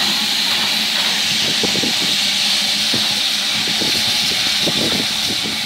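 Steam hissing steadily from a standing steam locomotive, BR Standard Class 9F 2-10-0 No. 92203 'Black Prince'.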